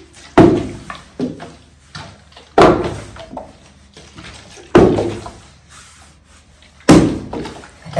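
A large plastic bottle flipped and landing on a rug-covered floor: four loud thuds about two seconds apart, some followed by a lighter knock.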